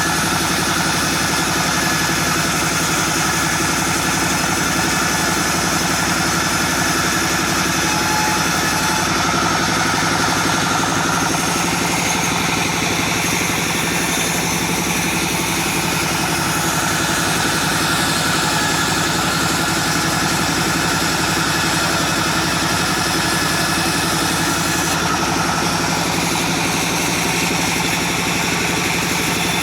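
Small engine running steadily at an even pitch, with no revving or pauses.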